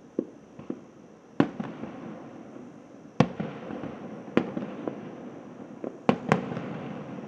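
Aerial firework shells bursting at a distance: five loud bangs, the last two close together, with smaller pops between. Each bang is trailed by a rolling echo.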